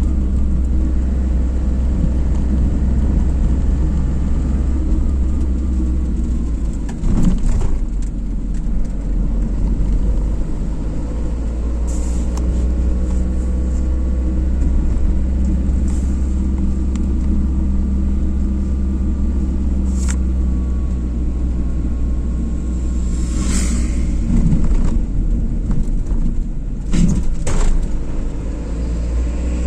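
Car driving on a road: steady low rumble of engine and tyres, with a few short knocks or rattles several seconds apart.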